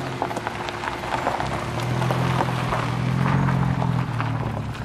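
Jaguar E-Type's straight-six engine running at low revs as the car rolls slowly past, growing louder about two seconds in, with its tyres crunching over gravel.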